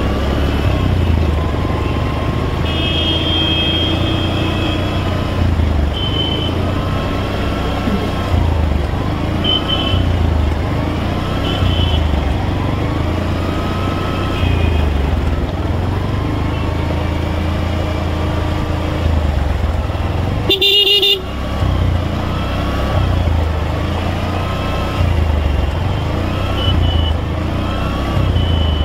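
Motorcycle running at low speed with a steady low rumble, while vehicle horns toot on and off around it; one loud, close horn blast lasting under a second comes about two-thirds of the way through.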